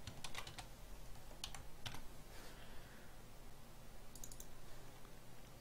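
Computer keyboard keystrokes typing code: a few scattered clicks, then a quick run of clicks about four seconds in.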